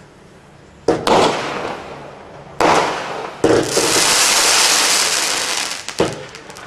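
Standard Fireworks 117-shot single-ignition multi-effect firework cake firing: a sharp bang with a crackling tail about a second in and another a couple of seconds later. Then comes a steady hiss of a spray of sparks for about two and a half seconds, ending in another sharp bang near the end.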